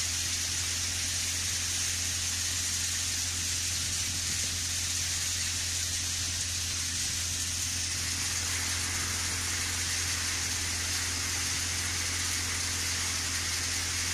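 Tractor-powered grain thresher running steadily: a constant low engine hum under an even high hiss.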